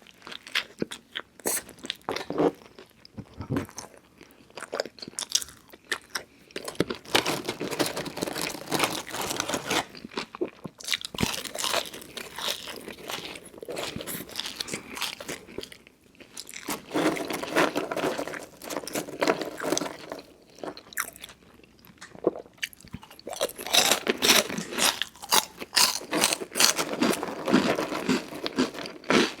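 Close-miked chewing of crunchy fast food: repeated crisp crunches and bites in bursts, with short quieter pauses between mouthfuls.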